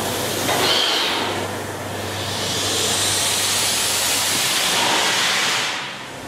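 Pinchbeck beam pumping engine running: a steady machinery hum under a long hiss that swells about two and a half seconds in and dies away near the end.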